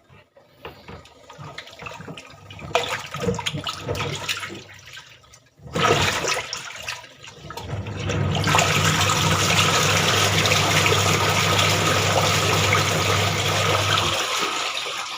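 Two-tub washing machine with a weak motor capacitor: water splashes irregularly in the tub, then from about eight seconds in the motor hums steadily under dense water churning, until the hum cuts off shortly before the end.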